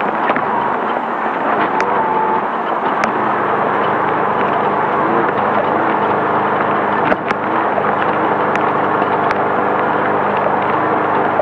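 Race car's air-cooled Volkswagen flat-four running steadily under load, with a constant rush of noise and a few sharp knocks now and then, the loudest about seven seconds in.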